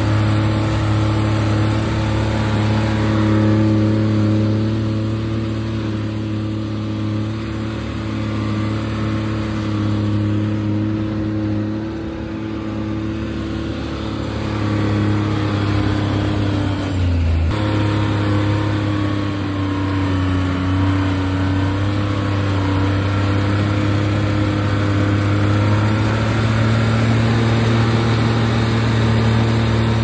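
Timberjack skidder's engine running as the machine drives along a skid trail, heard loud from the operator's seat. The engine note eases off in the middle, drops lower for a few seconds just past halfway, then picks back up.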